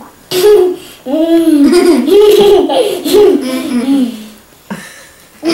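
Children laughing and giggling with their mouths stuffed full of marshmallows. There is a short burst near the start, then a longer run of laughter that fades out about four seconds in.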